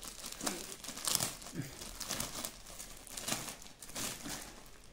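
Clear plastic poly bag crinkling and rustling in short, irregular crackles as fingers pick at its sealed end and handle the package.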